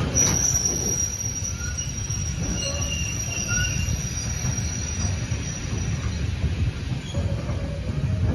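Loaded timber wagons of a freight train rolling slowly past with a low rumble, their wheels giving a high, steady squeal that starts right at the beginning and fades out about six seconds in.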